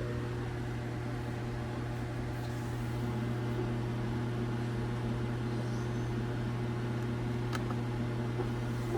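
Steady low mechanical hum with an even hiss, like a fan or blower running, with one faint click about seven and a half seconds in.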